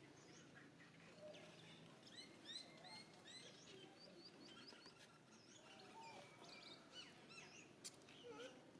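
Faint, busy chatter of many short high-pitched chirping and squeaking animal calls, with a few lower calls mixed in and a couple of sharp clicks.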